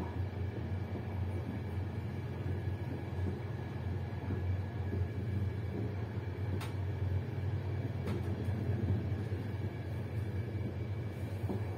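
Steady low rumble of a passenger train running along the track, with two faint clicks about six and a half and eight seconds in.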